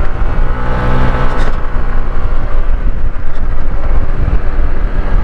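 Motorcycle engine running under load on a steep uphill climb, with wind buffeting the microphone.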